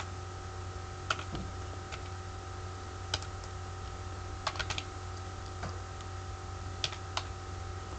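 Computer keyboard keys tapped slowly and unevenly, a handful of single clicks with a quick run of several about halfway through, over a steady background hum.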